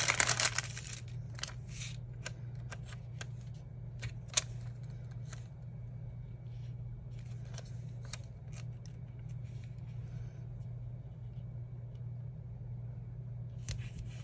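Crinkling of a translucent plastic sticker bag being handled, then scattered small taps and clicks as paper die-cut stickers are picked out and laid on a planner page, one sharper tap about four seconds in. A low steady hum sits underneath.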